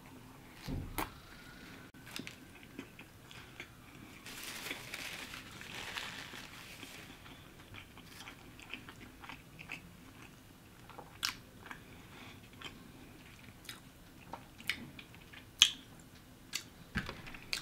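Close-up mukbang eating: a bite into a McDonald's Quarter Pounder with Cheese, then quiet wet chewing with scattered mouth clicks.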